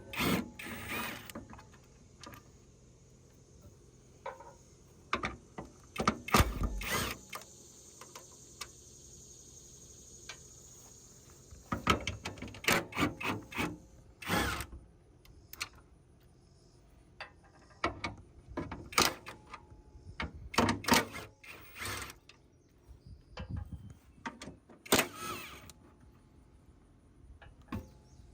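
Hand tools and metal parts clanking and clicking at irregular intervals, in several short clusters with quiet gaps.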